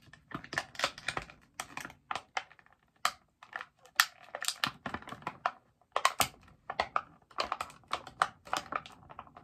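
A small toy box and its packaging being opened by hand: a dense run of irregular sharp clicks and crinkles.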